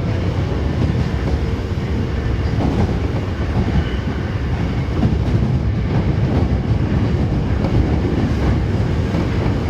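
Osaka Metro 22 series subway train running at speed, heard from inside the front car: a steady low rumble of motors and wheels on rail with faint rail-joint clicks.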